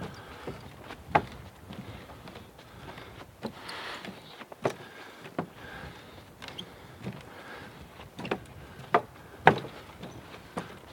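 Footsteps on a wooden boardwalk: a string of hollow knocks, about one a second and uneven, with the loudest step near the end.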